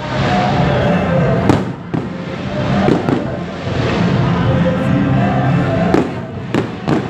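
Aerial fireworks bursting: continuous crackling with several sharp bangs, the last few in quick succession near the end, over background music.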